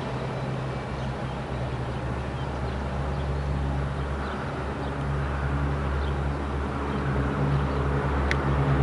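GE ES44AC diesel locomotive's V12 engine running with a steady low hum, growing louder over the last two seconds or so, with a few sharp clicks near the end.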